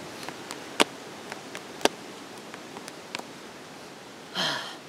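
Hands being played in rock, paper, scissors: a few sharp taps, the two loudest about a second apart, then a short vocal exclamation near the end.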